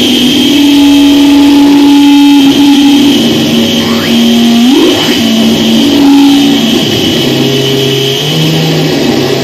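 Loud live noise-drone music: sustained droning tones that hold, then step to new pitches, with a sweeping glide rising about five seconds in and deeper tones entering near the end, all over a steady high whine and hiss.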